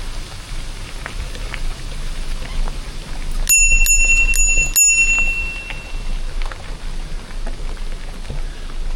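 Mountain bike's handlebar bell rung four times in quick succession about halfway through, each ding ringing on and the last fading over a second or so, over steady riding noise of tyres on a gravel forest road.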